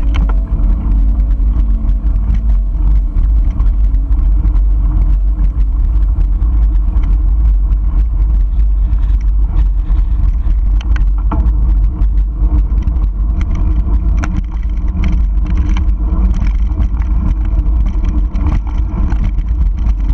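Wind buffeting the microphone of a camera on a mountain bike, with the rumble and rattle of the bike rolling over a dirt fire road and scattered knocks as the tyres hit stones.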